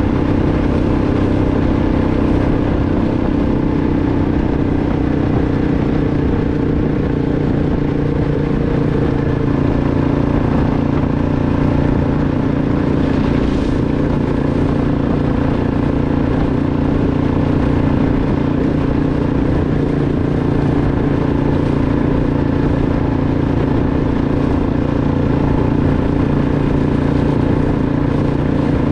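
A 2006 Arctic Cat 500 ATV's single-cylinder four-stroke engine running at a steady speed while being ridden, its pitch shifting slightly about a third of the way in.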